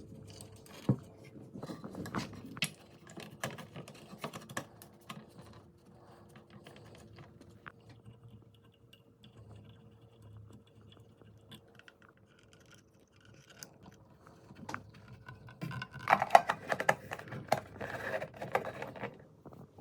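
Irregular clicks, taps and rustling of small objects being handled, over a faint steady hum. A louder flurry of clicks and rustles comes near the end.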